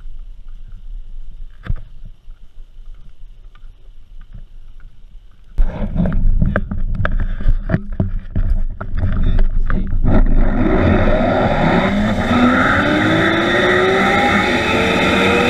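Zip-line trolley pulleys running along a steel cable, setting in about ten seconds in as a steady rushing hiss with a whine that rises steadily in pitch as the rider picks up speed. Before that, knocks and clatter of harness gear being handled and clipped on.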